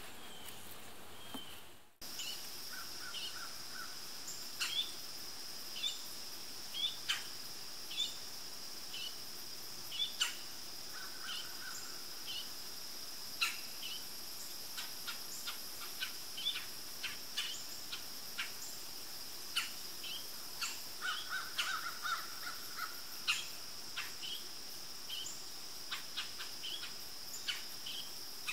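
Woodland ambience: insects trilling steadily, with birds chirping throughout and a crow cawing in three short bouts. Small clicks and rustles of cord being wrapped and knotted around the logs come now and then.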